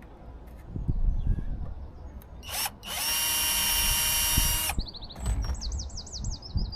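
Power drill driving a screw to fix garden railway track down: a short blip of the motor, then a steady run of about a second and a half that stops abruptly, with knocks of handling the track before it.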